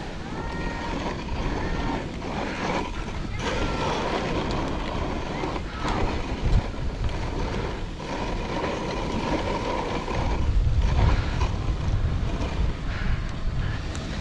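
Dog sled running over snow: a steady hiss and scrape of the runners with wind buffeting the microphone, and a few brief high squeaks in the first few seconds.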